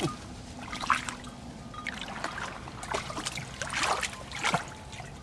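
Shallow muddy water splashing and sloshing in irregular bursts as hands grope in it for fish.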